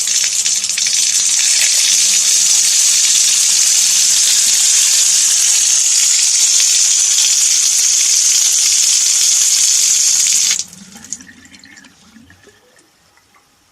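Tap water running steadily into a stone sink. It comes on suddenly and stops sharply about ten seconds in. A fainter trickle and small drips fade out after that.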